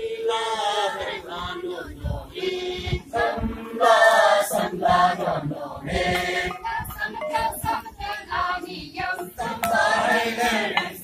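A group of men and women chanting a Tangsa Naga dance song together, many voices singing in unison.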